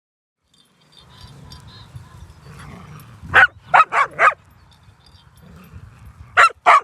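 Dog barking: a quick run of four barks a little over three seconds in, then two more near the end, over a low background rumble.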